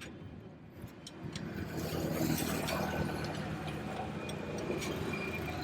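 A motor vehicle's engine running, growing louder over about a second and then holding steady.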